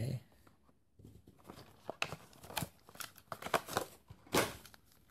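Cardboard toy box being opened by hand: irregular rustling and scraping of the packaging, loudest a little after four seconds in.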